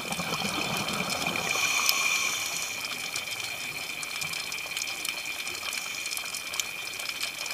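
Underwater sound on a coral reef: a gush of a scuba diver's exhaled air bubbles swells for the first three seconds or so. Under it run a steady hiss with a constant high whine and scattered sharp clicks.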